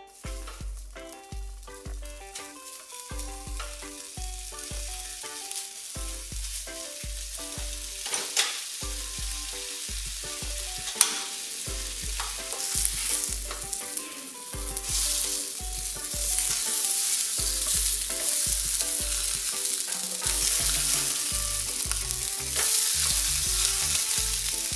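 Sausages sizzling in a hot nonstick frying pan, the sizzle growing louder through the second half, with a sharp click or two from the pan and utensils along the way. Background music with a steady bass beat plays throughout, alone at the very start.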